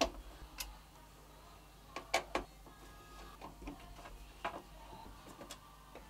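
Scattered light clicks and ticks of a screwdriver turning out the small screws that hold a motherboard to its standoffs in a PC case, a quick cluster of three about two seconds in.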